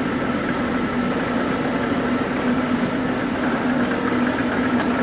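1850s New Haven engine lathe, belt-driven from an electric-motor line shaft, running steadily while turning a long steel shaft: an even machine hum with a constant low drone and a couple of faint ticks in the second half.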